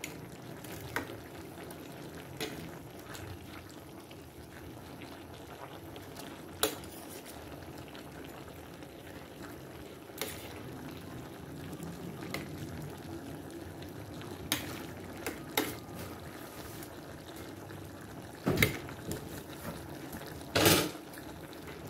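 A pot of papaya in coconut milk simmering, a steady bubbling hiss, with a handful of short sharp clicks or taps scattered through it, the loudest two near the end.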